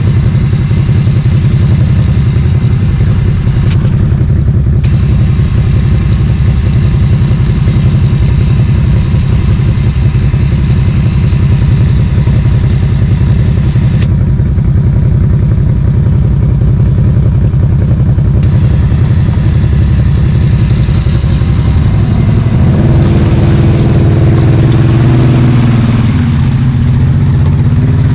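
ATV engine running steadily close to the microphone, then revving up with rising and falling pitch about four-fifths of the way through.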